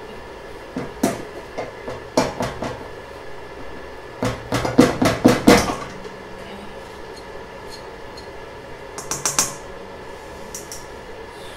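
A hand tool clinking and scraping against a stainless steel bowl in three bursts of quick clicks, the loudest about four to six seconds in.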